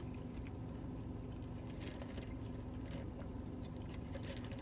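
Quiet, steady hum inside a car cabin, with faint sipping through a straw and small mouth noises of eating and drinking.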